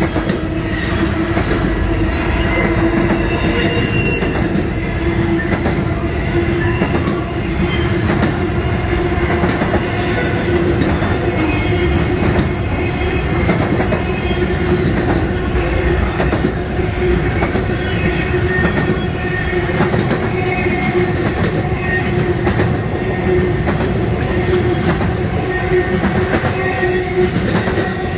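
Intermodal freight cars carrying highway trailers rolling past at steady speed: continuous wheel-on-rail rumble with a steady ringing tone from the wheels and scattered clicks as the wheels pass over the rail joints.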